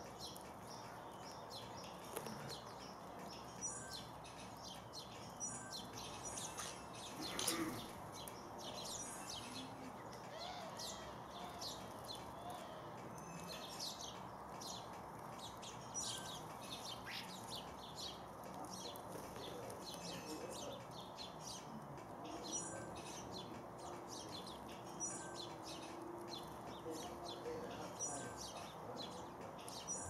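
A flock of house sparrows chirping continuously around garden feeders, with wings fluttering as birds come and go, and one louder flurry about seven seconds in.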